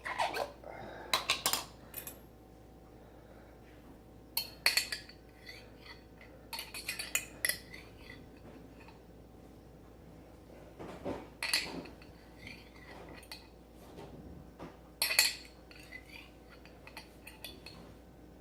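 Kitchen utensils and dishes clinking and clattering in scattered bursts of sharp clicks, as ingredients are handled on a plate.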